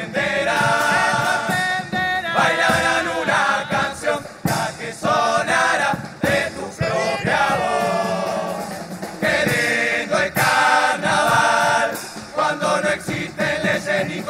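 Murga chorus of voices singing together over drum beats and cymbal hits, in the closing farewell song of a carnival murga.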